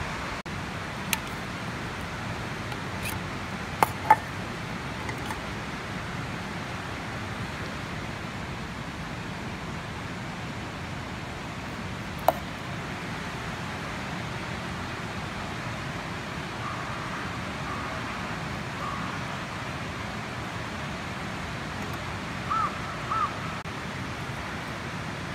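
Steady outdoor rushing noise, broken by a few sharp clicks, the loudest about four seconds in and another about twelve seconds in, and by a few short high chirps in the second half.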